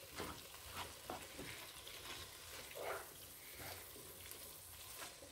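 Sliced onions and black olives sizzling faintly in a frying pan, stirred with a wooden spoon that scrapes and taps lightly against the pan now and then.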